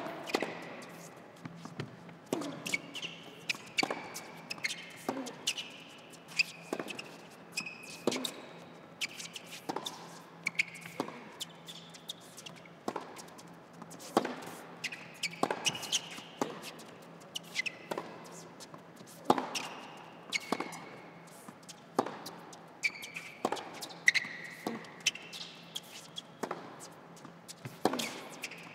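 A long tennis rally on an indoor hard court. Racket strikes and ball bounces come about once a second, with shoes squeaking on the court between shots.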